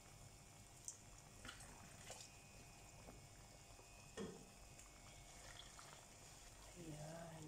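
Faint, steady bubbling of cooking oil around raw potato sticks frying in a pan, kept low because the cold potatoes have just cooled the oil. A few light clicks and a soft knock about four seconds in break through it.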